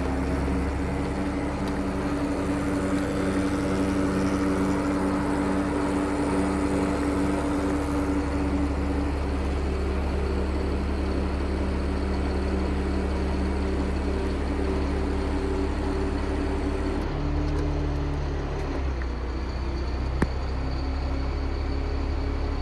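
Caterpillar C7 diesel engine of a Kenworth T300 service truck running steadily while the crane's hydraulics are worked, its note changing about three-quarters of the way through.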